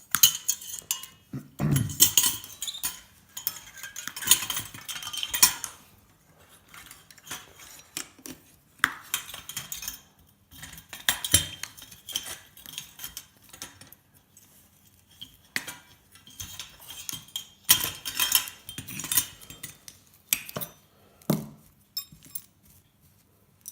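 Metal parts of an old chandelier clinking, rattling and scraping against each other as it is taken apart by hand. The sound comes in irregular clusters of sharp clinks, with short quieter pauses between them.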